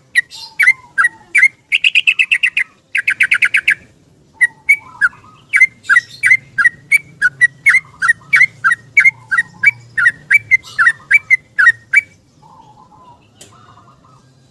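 Yellow-vented bulbul singing a long, rapid song: two fast trills, then a run of sharp chirps at about three a second that stops about twelve seconds in.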